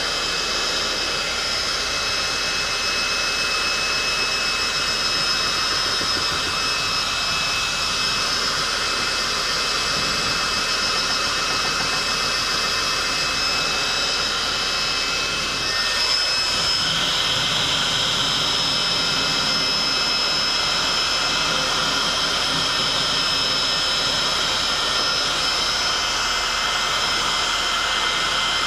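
Heat gun running steadily: a rush of blown air with a high motor whine. A little past halfway it dips briefly, then comes back slightly brighter.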